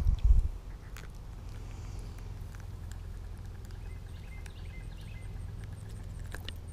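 Handling noise on a body-worn camera: a couple of heavy low thumps right at the start, then a steady low rumble with small clicks as the angler kneels in the grass. Faint bird chirps and a fast, even high ticking sit in the background.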